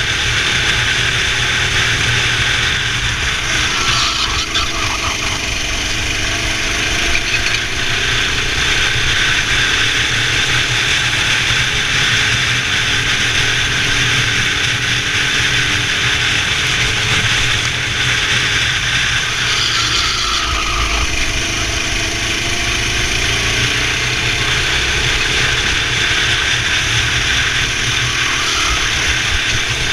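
Kart engine running hard, its pitch rising and falling every few seconds as it accelerates and lifts through the corners, over a steady loud noise.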